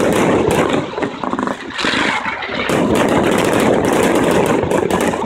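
A fireworks display going off: aerial shells bursting overhead with a dense, rapid crackling and popping that keeps on without a break.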